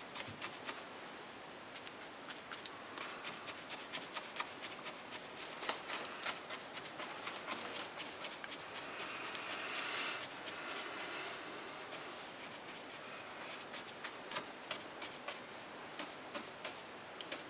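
Large round paintbrush dabbing paint onto a fascia board with punching strokes: a quick, irregular patter of soft bristle taps, with a denser scrubbing swish about nine to eleven seconds in.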